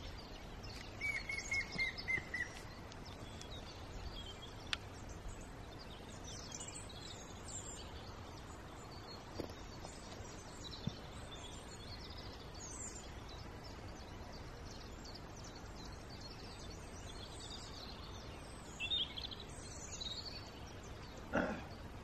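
Small woodland birds calling and chirping, with thin high notes scattered throughout. About a second in comes a quick run of roughly eight evenly spaced whistled notes.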